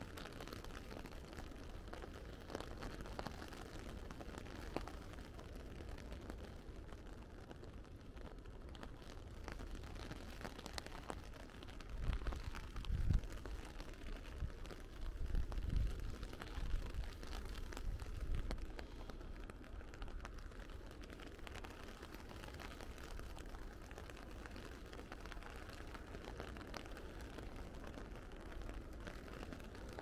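Steady rain, with scattered drops ticking close by. A spell of low rumbling bumps comes about halfway through.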